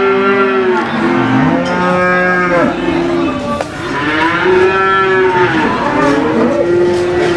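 Several cattle mooing at once. The long calls rise and fall in pitch, overlap at different pitches and follow one another with hardly a break.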